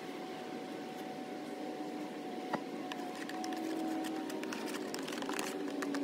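Honeybees buzzing in a dense, steady drone around an opened hive, the pitch wavering slightly, with scattered light clicks and taps growing more frequent in the second half.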